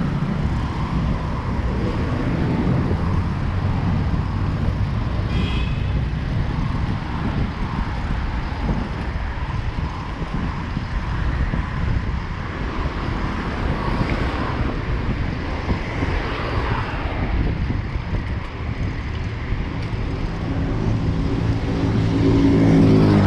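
City street traffic: a steady rumble of cars and engines passing, with a brief high-pitched squeal about five seconds in. Near the end a vehicle engine grows louder as it draws close.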